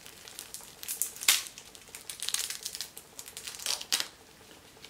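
Crisp dried nori seaweed on a freshly unwrapped onigiri rice ball crackling as it is broken apart by hand, in three spells of crackling, the sharpest about a second in.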